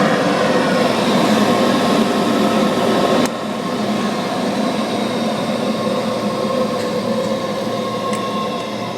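Vintage Hoover Model 3 vacuum cleaner, with its 64-blade fan, running steadily with a motor hum and whine. About three seconds in there is a sharp click, and the running sound drops a little quieter.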